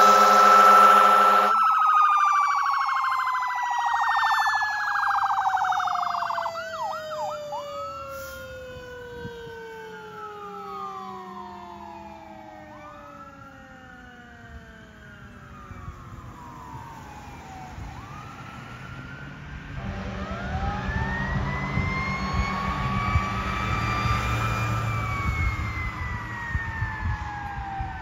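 Fire truck sirens on an emergency response. An air horn blast cuts off about a second and a half in, and then a siren winds down in one long falling tone while an electronic siren wails up and down, with a brief fast yelp partway through. Near the end a siren wails up and falls again over the sound of the passing truck's engine.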